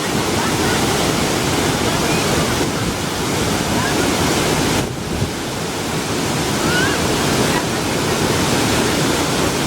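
Waterfall rushing, a loud, steady wash of falling water close to the microphone, with a few faint short rising calls in the background.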